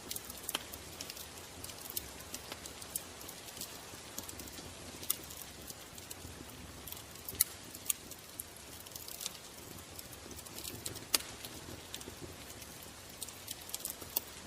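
Ambient nature sound bed: sharp, irregular crackles and snaps, a few of them much louder, over a steady low hiss.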